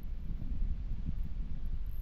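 Wind buffeting the microphone in an uneven low rumble.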